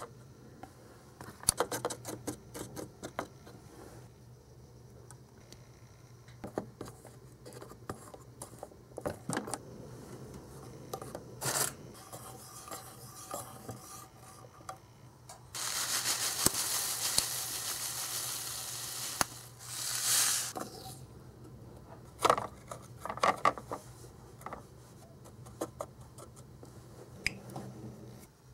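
Small utensils clicking and tapping against tiny clear plastic moulds and a toy pan. About halfway through comes a few seconds of steady scraping and rubbing as a spatula stirs melted chocolate in the pan.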